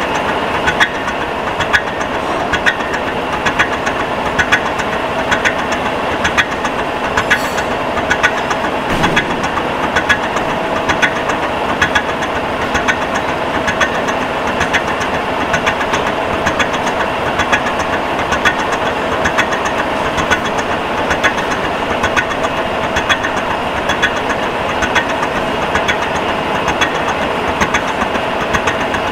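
Milling machine cutting a flywheel: a steady machine hum and cutting noise with regular, evenly spaced ticks throughout.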